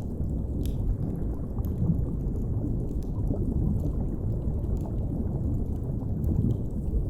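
Underwater ambience: a steady deep rumble of water, with faint, sparse fire crackles over it.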